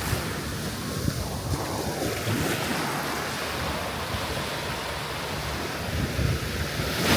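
Ocean surf washing onto the beach, with wind buffeting the microphone; the wash swells louder again near the end.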